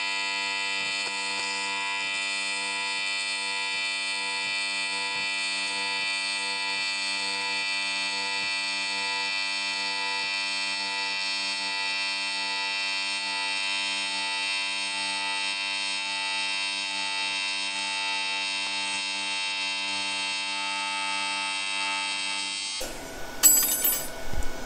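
AC TIG welding arc on aluminum, a steady high-pitched buzz held at an even level while filler is fed into the joint. It cuts off near the end, leaving a brief softer hiss.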